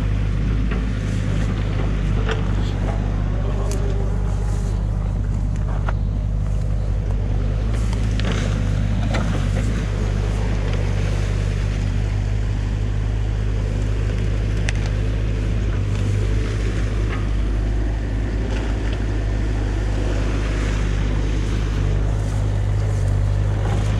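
New Holland Kobelco mini excavator's diesel engine running at a steady pitch, with scattered light clicks over it.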